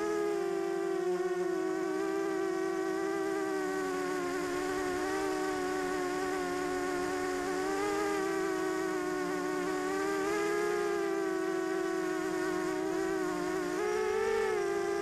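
Diatone 250 quadcopter's motors and propellers buzzing steadily as it flies, heard through its onboard camera, the pitch wavering a little with throttle and rising briefly a few times, most clearly near the end.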